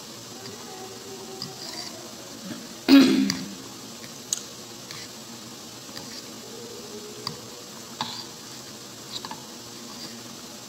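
A person clears their throat with a short cough about three seconds in, the loudest sound here. A few light clicks of a metal fork against a bowl follow while eating noodles.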